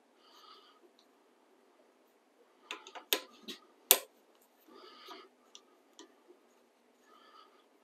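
Small metal clicks and clinks from a 5 mm hex wrench loosening socket head screws on a DeWalt 735X planer's gearbox, a cluster of sharp clicks about three to four seconds in, the loudest near four seconds, with a few brief scrapes.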